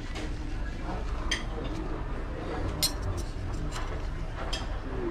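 Cutlery clinking against a plate: a few sharp clinks spread apart over a steady background din.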